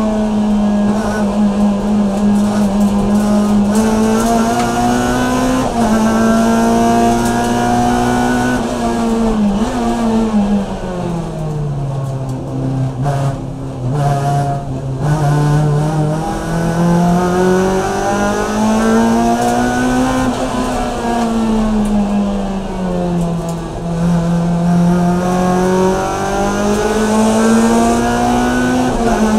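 Race car's Bourne-built engine heard from inside the cabin, running hard at racing revs. About ten seconds in the note drops low as the car slows for a corner, then climbs back up, and it keeps rising and falling with throttle through the rest of the lap.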